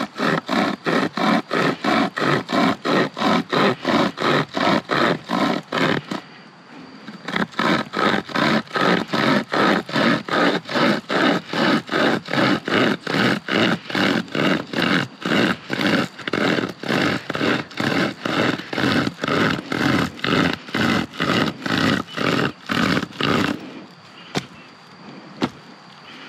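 Small hand saw cutting firewood in quick back-and-forth strokes, about three to four a second. The sawing pauses briefly about six seconds in, then resumes and stops near the end.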